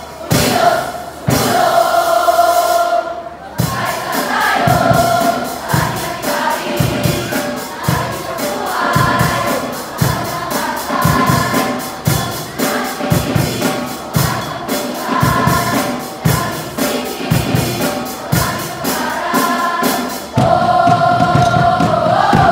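A large squad singing and chanting in unison over music with a steady beat. A long held note opens it, the middle runs as rhythmic chanting on the beat, and another held note comes in near the end.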